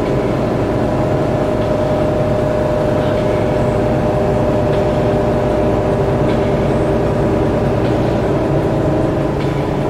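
Bustech ADi bus's Cummins ISL inline-six diesel engine and ZF EcoLife automatic gearbox running steadily, heard from inside the passenger cabin: an even drone with a steady whine over it.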